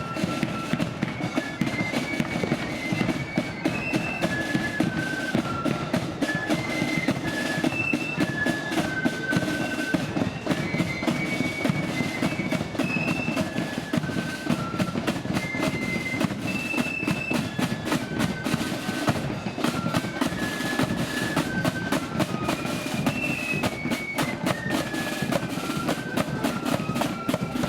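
Marching flute band playing a march: a high, stepping flute melody in unison over a dense, driving beat of snare and bass drums.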